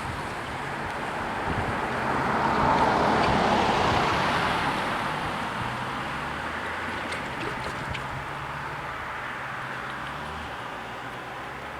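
A road vehicle driving past: tyre and road noise swells to a peak about three seconds in, then slowly fades away.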